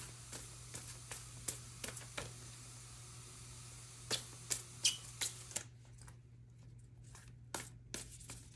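Soft scattered clicks and taps of tarot cards being shuffled and handled, over a faint steady low hum.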